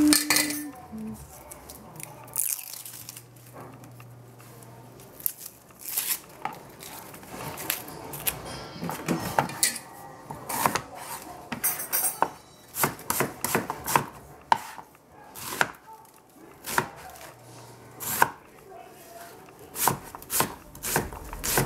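Cleaver chopping onion on a plastic cutting board: sharp knocks of the blade hitting the board, few at first, then quick irregular runs from about six seconds in.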